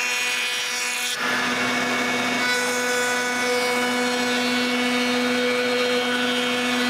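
Woodworking power tool running steadily at a constant pitch, with an abrupt change in the sound about a second in.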